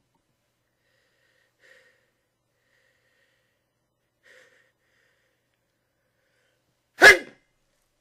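A person's single sharp, loud sneeze about seven seconds in, after two faint short sounds.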